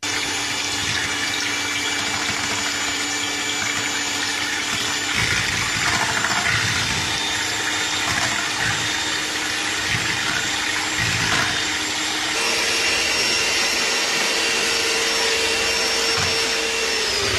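Electric hand mixer running steadily, its beaters whisking vegetable oil and soy milk in a stainless steel bowl. About twelve seconds in its motor note steps up to a higher pitch, and it starts to wind down at the very end.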